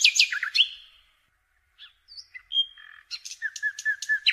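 Birds chirping: a quick burst of descending chirps, a few scattered calls, then a run of short repeated notes from a little past three seconds in.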